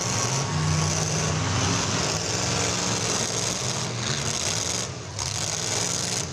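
Demolition derby car engines running and revving, a steady mechanical rumble with no impact standing out.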